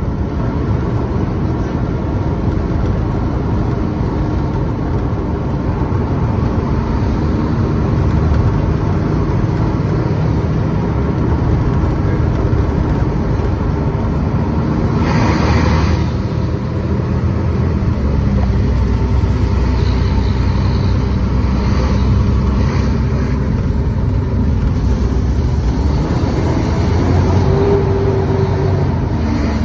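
Fire truck engine and road noise heard from inside the cab while driving, a steady low rumble, with a short rush of noise about halfway through.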